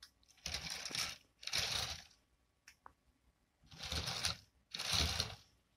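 Unpowered 1:87 scale TEP70 diesel locomotive model rolled back and forth by hand on model track, its wheels rattling on the rails in four short runs of about half a second to a second each.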